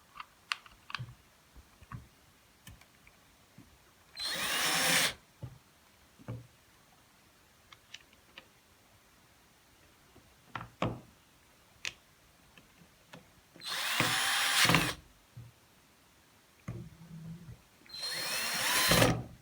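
Power drill run in three short bursts of about a second each, its motor pitch sweeping up and down, with light clicks and knocks of handling in between.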